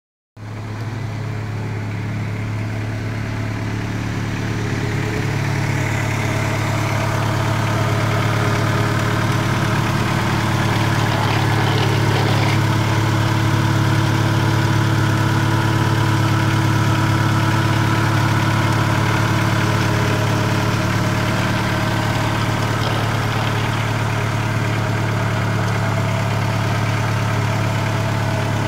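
A 1994 Acura Integra's B18 non-VTEC 1.8-litre four-cylinder engine idling steadily, heard close up from the open engine bay, getting a little louder over the first several seconds.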